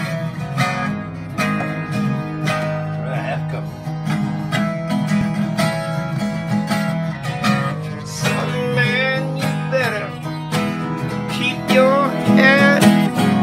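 Acoustic twelve-string flattop guitar strummed in a steady rhythm. A wavering voice comes in over it about eight seconds in and again near the end.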